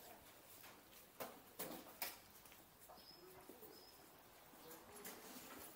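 Quiet outdoor ambience with a few soft footsteps in the first two seconds and faint bird calls, including short high chirps about three seconds in.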